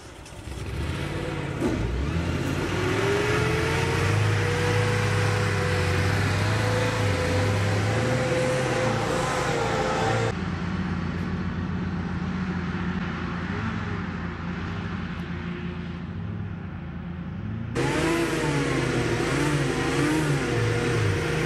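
Space 2000 hovercraft's engine and ducted propeller fan running. The tone rises in pitch over the first few seconds and then holds steady. The sound turns abruptly duller about ten seconds in and bright again near eighteen seconds.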